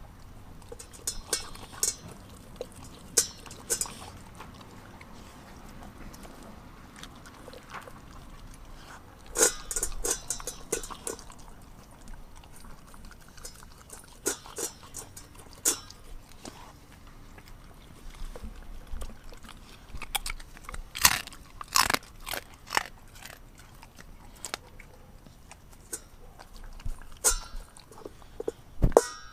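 German shepherd mix chewing and crunching raw food from a stainless steel bowl: irregular sharp crunches and clicks, bunched most thickly about a third of the way in, again after about twenty seconds, and near the end.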